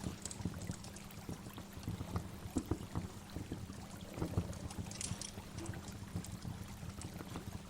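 Waterfall water running steadily, with many small irregular splashes.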